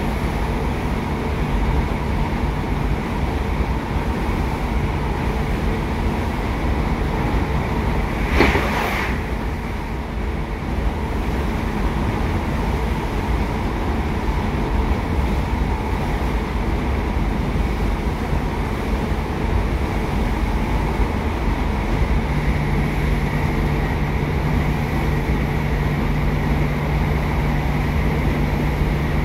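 Inside a British Rail Class 150 Sprinter diesel multiple unit under way: steady running rumble from the wheels, track and underfloor Cummins diesel. A steady low hum fades out near the start and comes back about two-thirds of the way through, and there is one short sharp clatter about eight seconds in.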